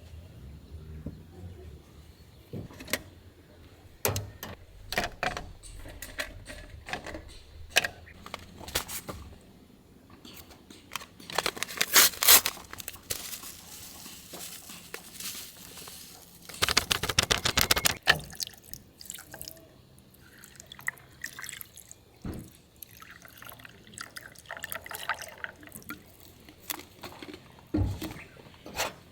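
Water poured into a container for cold-brewed tea, in two short pours of about one to two seconds each. Scattered clicks and knocks of handling come between the pours.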